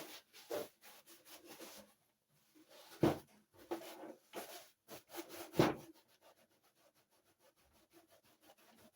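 Scrubbing the dirty plastic surface of a vintage Remco TMNT Sewer Hockey game with soapy water: irregular rubbing strokes, loudest about three and five and a half seconds in, then quicker, fainter strokes near the end.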